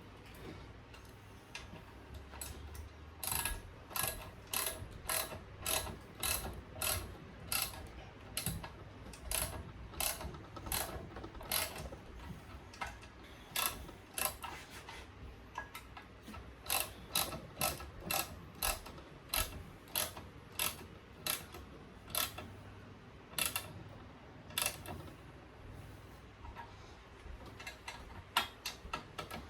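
Ratcheting spanner clicking in repeated runs of quick strokes with short pauses, as mount bolts are tightened down.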